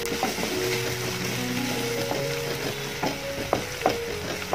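Chopped onions and spice powders sizzling in hot oil in a nonstick kadai while a spatula stirs them, with irregular scrapes of the spatula against the pan. Soft background music with steady held notes plays over it.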